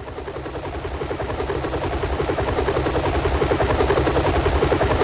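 Helicopter rotor sound effect, a rapid rhythmic beating that grows steadily louder as the helicopter approaches.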